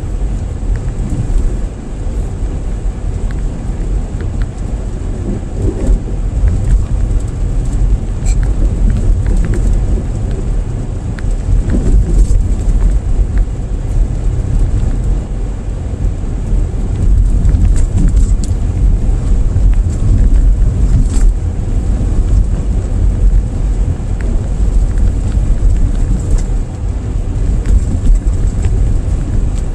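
Car driving on a highway, heard from inside: a steady low rumble of tyres and engine road noise.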